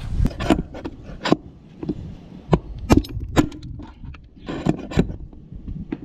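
Hammer blows driving the old front wheel bearing out of a zero-turn mower's wheel hub: a string of sharp metallic strikes at an uneven pace. The bearing is stubborn and does not come out easily.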